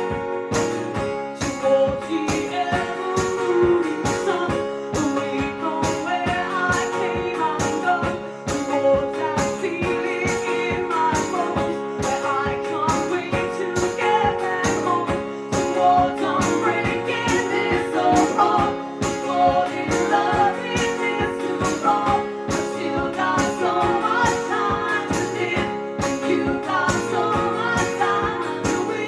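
A live band playing a song: singing over strummed guitars, with an even percussive beat.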